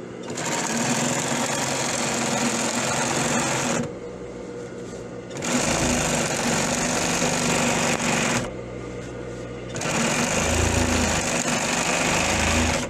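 A double-needle sewing machine stitching down the elasticated waistband of a pair of shorts, flattening it with two rows of stitching. It sews in three runs of about three seconds each, with short pauses between them in which a quieter steady hum continues.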